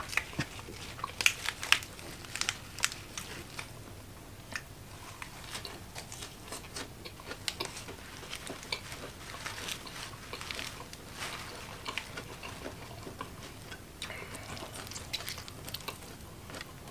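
Close-miked eating sounds of a person biting and chewing sambal-coated fried chicken: a run of crunchy, clicking bites and chews, sharpest about one to three seconds in, then continuing more softly.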